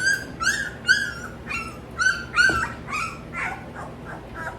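Goldendoodle puppies crying in quick, short, high yelps and whimpers, about two or three a second, which thin out and fade near the end.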